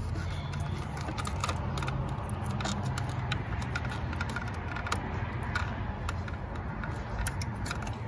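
Scattered clicks and light knocks of a hand working a plastic ignition coil and its electrical connector loose among rubber hoses, over a steady low rumble.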